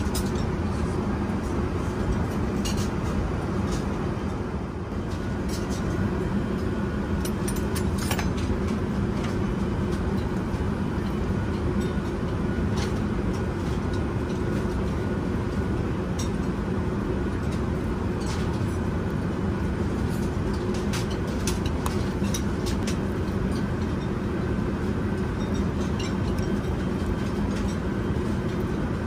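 Steady cabin noise of an Airbus A380 in flight: a constant rumble and hiss of engines and airflow. A few light clinks of cutlery and dishes on the meal tray sound now and then.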